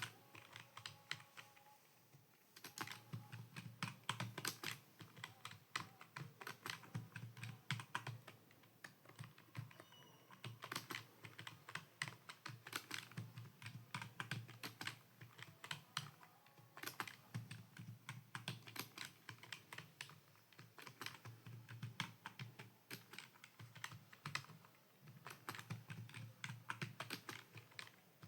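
Typing on a computer keyboard: a quick, uneven run of key clicks, with a short pause about two seconds in, during a home-row typing drill.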